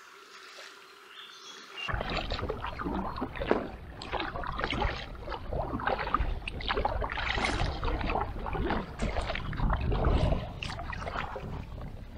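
Kayak paddle strokes splashing and dripping water, heard up close from a camera mounted on an inflatable kayak, over a steady low rumble. The sound comes in suddenly about two seconds in, after a faint quiet stretch.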